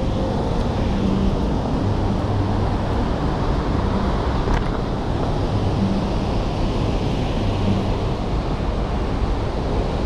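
Steady rush of a fast river churning into whitewater through a rock gorge, with some wind on the microphone.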